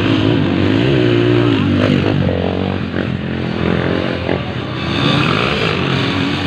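Motocross dirt bike engines revving, the pitch rising and falling.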